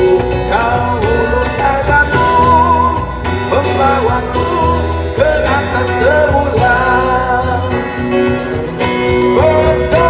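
Live amplified busker band playing a rock song: a man singing through a microphone over acoustic guitar, electric bass and cajon.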